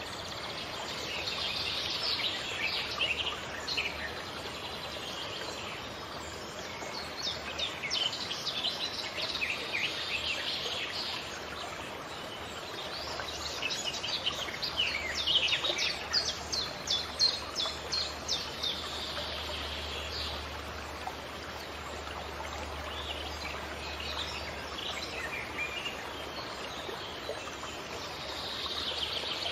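Songbirds singing in several phrases of rapid chirping notes, with pauses between them, over a steady background hiss.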